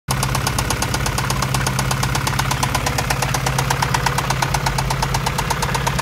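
Acura Integra's B20 VTEC hybrid four-cylinder engine idling at a steady speed with a rapid, even knock, which the owner guesses is a spun bearing.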